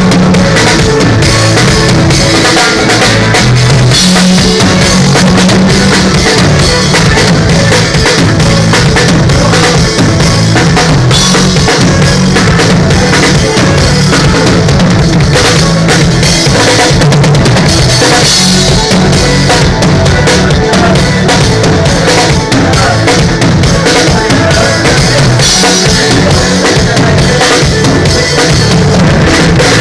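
Loud band music driven by a drum kit, with kick drum, snare and rimshots over a heavy, steady bass line, played during a sound check.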